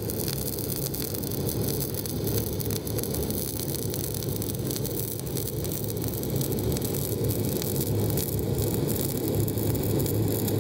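MIG welding arc running metal-core wire, a steady dense crackle under a constant low hum.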